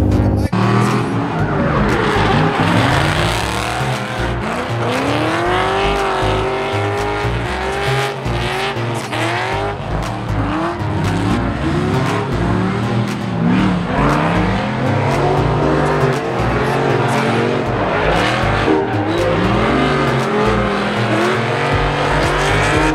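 Drift cars' engines revving hard, their pitch climbing and dropping again and again as the drivers work the throttle, with tyres squealing as the cars slide sideways.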